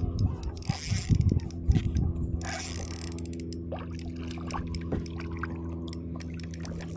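Spinning fishing reel clicking and ratcheting as a small snook is reeled in, with many quick clicks, thickest in the first few seconds. Two brief rushing noises come in the first three seconds, over a faint steady low hum.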